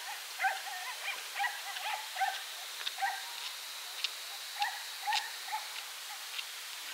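An animal giving a string of short, pitched calls, roughly one or two a second, over a steady background hiss.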